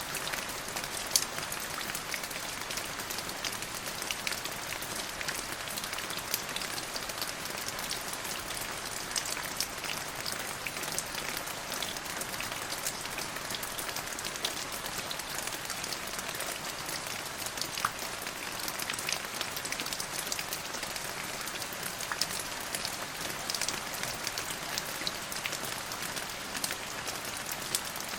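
Steady rain falling, with individual drops ticking sharply now and then over a constant hiss.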